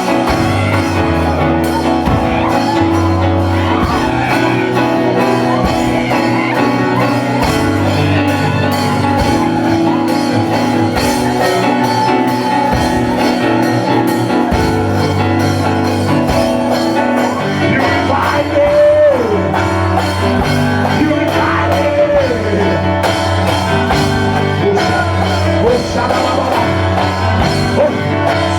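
Praise-and-worship band music playing steadily, with guitar and a driving beat. In the second half a voice sings out a few short, falling phrases over it.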